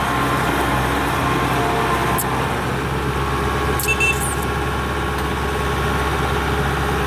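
Heavy diesel engine idling steadily with a low, even hum. A short high squeak comes about four seconds in.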